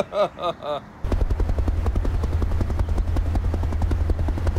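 A few laughing syllables from a voice. About a second in, a helicopter rotor sound effect starts abruptly and runs steadily, a low rumble with a rapid even chop, for the toy rescue helicopter.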